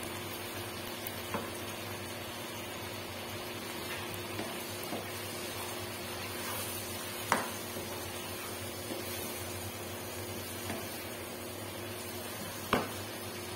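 Chopped vegetables cooking in a non-stick wok with a steady low sizzle, while a wooden spoon stirs them with light scrapes and taps on the pan. Two sharper knocks of the spoon against the wok, about seven seconds in and near the end.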